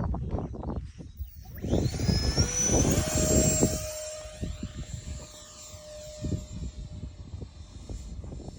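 Electric ducted fan (50 mm, 3S) of a small 3D-printed delta jet spooling up to a high whine about two seconds in, then fading as the jet flies away. Low rumbling on the microphone before the fan rises.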